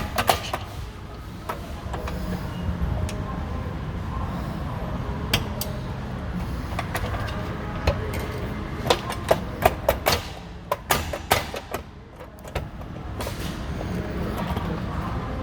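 Scattered metal clicks and knocks as a panic bar exit device is handled and fitted back onto a storefront door, a few sharp ones near the start and a cluster from about eight to eleven seconds in. A steady low rumble sits underneath.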